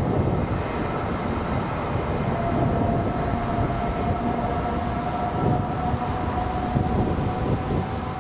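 Class 70 diesel-electric locomotive running as a light engine, its diesel engine giving a steady rumble. A high whine comes in about two seconds in and rises slightly in pitch.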